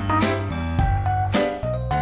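Background music with a steady beat, a little under two beats a second, under sustained melodic notes.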